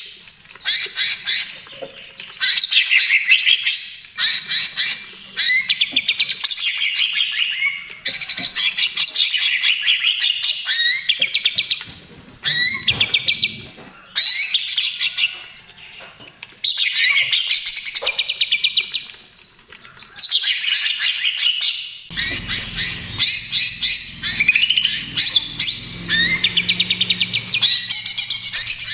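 Cucak ijo (green leafbird) singing loudly in repeated phrases of rapid trills and chattering notes, each a second or two long with short pauses between. A low hum comes in about two thirds of the way through.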